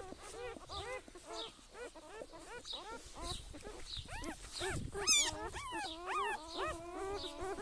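Several cats meowing over and over in short rising-and-falling calls, several overlapping at about three a second. The loudest and shrillest cry comes about five seconds in, and the calls stretch out longer near the end.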